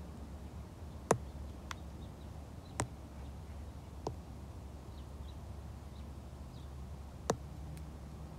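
Five short, sharp taps of a stylus tip on a tablet's glass screen, spaced irregularly and the first the loudest, over a low steady hum.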